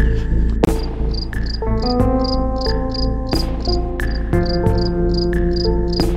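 Background music of held synth notes that change pitch every second or so over a steady low drone. About a second in, a high chirp joins it, repeating evenly about three times a second.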